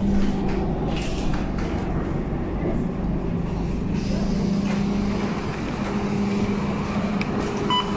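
Inside a moving city bus: a steady low engine hum with road rumble. A short electronic beep sounds near the end.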